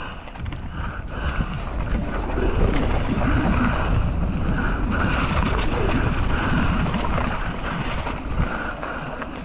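Wind buffeting the microphone during a mountain-bike ride, with a low rumble from the trail and a few sharp knocks. The rumble grows louder about two seconds in.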